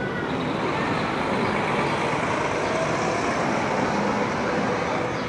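Road traffic on a city street: a steady rush of passing vehicles, swelling slightly through the middle.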